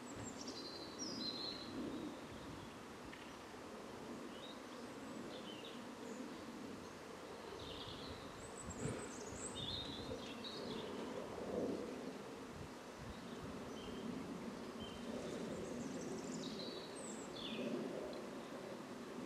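Garden songbirds giving short, high chirps, scattered irregularly and in small clusters, over a steady low background noise.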